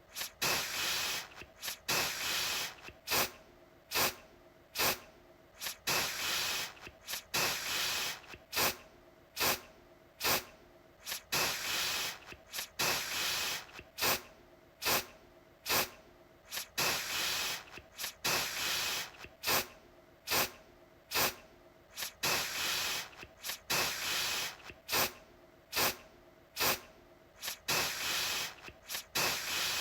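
Aerosol deodorant can spraying in short hissing spurts, about one a second, some held a little longer than others.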